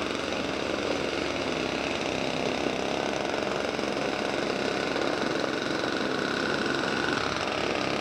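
Small walk-behind snowblower engine running steadily as it is pushed along a sidewalk clearing snow.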